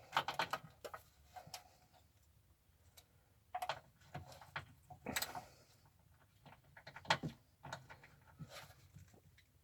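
Scattered clicks and light metallic taps of a 3/8-inch ratchet with a 10 mm socket on a swivel, worked onto and around a rear oil pan bolt.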